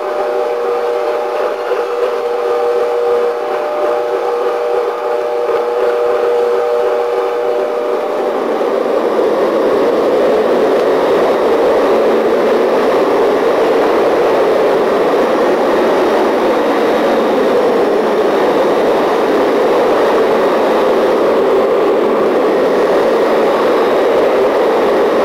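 Rotary floor machine spray buffing, running with a steady multi-tone hum. About eight seconds in, a 2400 RPM electric burnisher with a combination floor pad takes over, running louder with a rougher, noisier whir.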